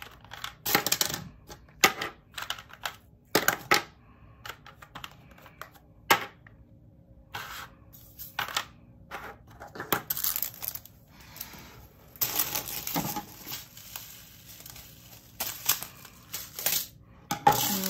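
Round resin diamond-painting drills rattling and clinking as they are poured into and handled in small plastic storage containers, in a series of short bursts of clicks and rattles with quieter gaps. Near the end a plastic bag of drills is handled.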